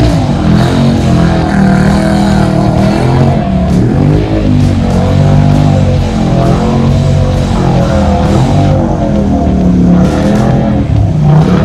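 Rock music with electric guitar playing steadily.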